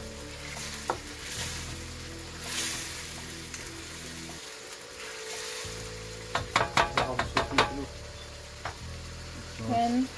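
A wooden spatula stirring a simmering tomato sauce in a steel wok, the sauce sizzling. About two-thirds of the way through comes a quick run of sharp knocks as the spatula strikes the wok.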